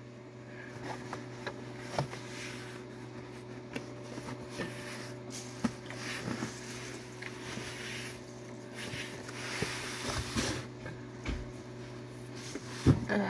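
Scattered rustling and handling noises with light clicks, then a couple of low thumps near the end, over a steady low hum.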